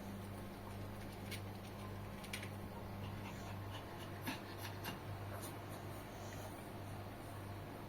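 Sleeping dog snoring softly with a raspy, scratchy breath, over a steady low hum.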